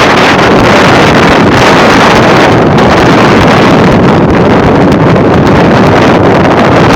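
Steady, loud wind noise buffeting the microphone.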